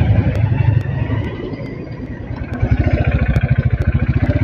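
Motorcycle engine running under way at road speed, with wind rushing past the microphone. About halfway in, the engine's rapid firing pulse becomes more distinct and steadier.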